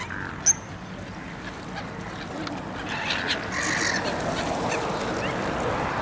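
Waterbirds calling from the water, many short calls overlapping, with a sharp click about half a second in. The background noise grows louder from about three seconds in.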